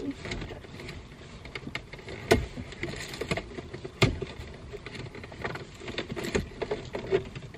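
Handling noises inside a car: rustling and scattered small clicks, with two sharper knocks about two and four seconds in, as someone leans about fitting fuzzy car accessories.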